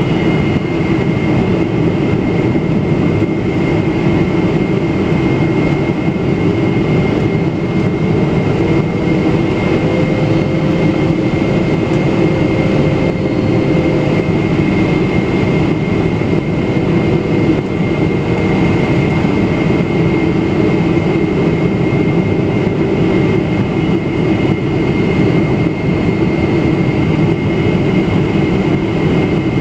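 Cabin noise inside a Boeing 777-300ER descending to land, with its GE90-115B turbofan running steadily under a constant high whine. A lower engine tone rises a little about a quarter of the way in and eases back down later.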